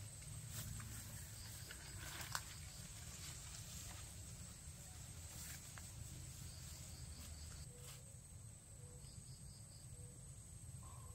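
Faint forest ambience: a steady high-pitched insect drone with short runs of high chirps, and light rustling and clicks of footsteps through undergrowth, the sharpest click about two seconds in.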